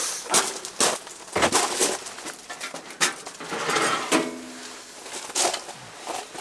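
Camping gear being handled and set down: a run of irregular clinks and knocks of hard items against each other.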